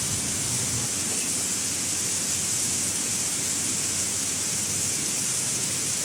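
Steady rushing of a rain-swollen stream, an even hiss of flowing water with no breaks.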